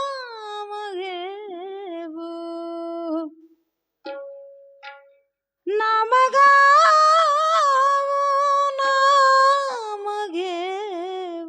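A woman singing a wordless, ornamented opening alaap to a Marathi devotional abhang, with wavering held notes, two short breaks, and a louder sustained phrase in the middle.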